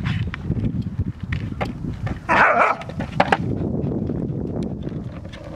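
Skateboard wheels rolling over rough asphalt with a steady low rumble and scattered clicks, carrying an Entlebucher puppy. A short, loud outburst comes about two and a half seconds in.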